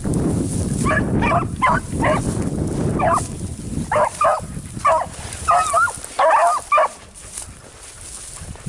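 A pack of beagles baying as they run a rabbit: short, high yelps and bawls from several dogs, coming in quick groups and sometimes overlapping, stopping about seven seconds in.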